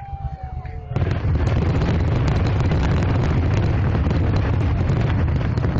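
Fireworks going off in a rapid, continuous barrage. About a second in, it starts suddenly as dense crackling and bangs over a deep rumble.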